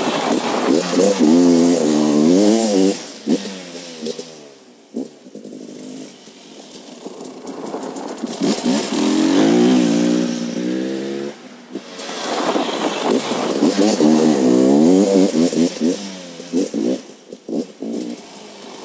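2017 KTM EXC 300 TPI's fuel-injected two-stroke single-cylinder engine through its stock exhaust, revving up and falling back in three long surges, with quieter spells in between.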